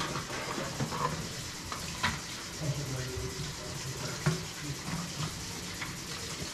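Tap water running into a sink in a steady hiss, with scattered short knocks and clatter.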